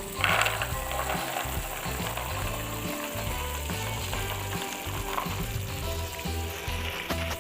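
Food frying and sizzling in a pan while it is stirred, with a louder burst of sizzle right at the start and a smaller one about five seconds in. Background music plays along with a steady beat.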